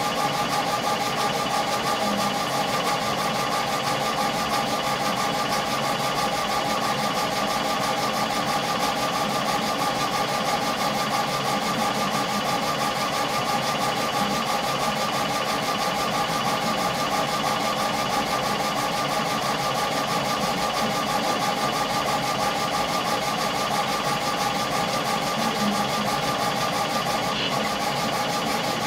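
Epilog Fusion CO2 laser engraver running an engraving job, its laser head carriage moving over the work with a steady mechanical whine made of two held tones.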